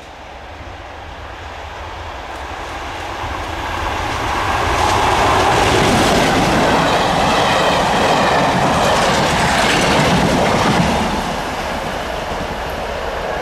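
Class 37 diesel locomotive and test train approaching and passing close at speed: the engine and rolling noise build up, then wheels clatter over the rail joints as the train goes by. The sound drops off about eleven seconds in as the train moves away.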